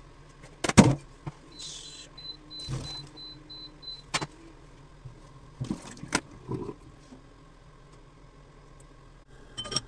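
A pot and kitchenware knocking and clattering against a stainless steel sink: a few sharp knocks, the loudest about a second in, with a short hiss and a faint pulsing high tone in the first half.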